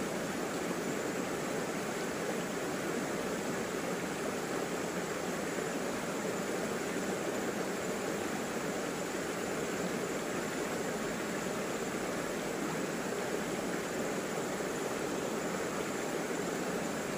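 Shallow river flowing over rocks: a steady sound of running water.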